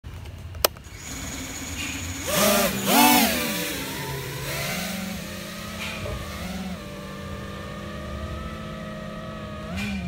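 FPV freestyle quadcopter's brushless motors and propellers whining: a sharp click under a second in, two hard throttle punches that rise and fall in pitch around two and a half and three seconds in, then a steadier whine that dips and swells with the throttle as it flies.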